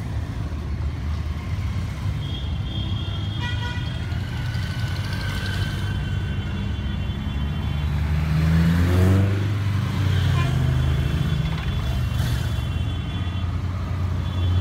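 Motorcycles with sidecars riding past one after another at walking pace, their engines running low and steady. About eight seconds in, one passes close and its engine pitch rises as it pulls away; this is the loudest moment. High steady tones sound over the engines at times.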